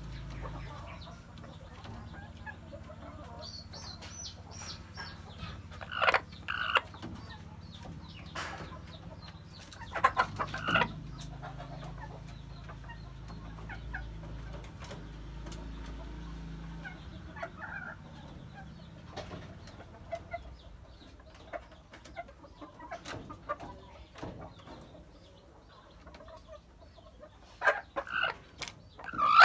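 Broody hen sitting on a clutch of eggs, giving short clucks a few seconds apart, loudest about a third of the way in. A low steady hum underlies the first two-thirds.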